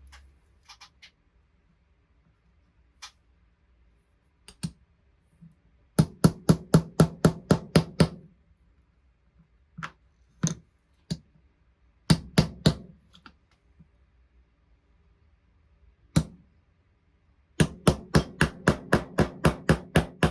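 Small hammer striking a die-cast toy's axle to drive it out of a wheel that old paint has stuck fast: runs of quick, sharp blows, about six a second, with a few single knocks in between.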